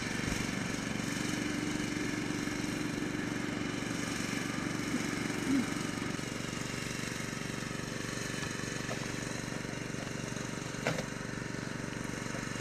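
Steady engine hum with several held tones, with a short rising squeak about five and a half seconds in and a single light knock about eleven seconds in.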